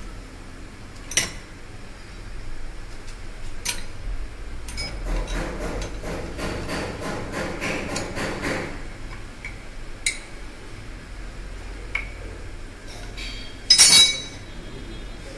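Steel spanner clicking and clinking on the steering rack's adjuster lock nut as it is tightened to lock the rack play setting. There are single sharp clicks, a run of quick even clicks in the middle, and the loudest metal clatter near the end.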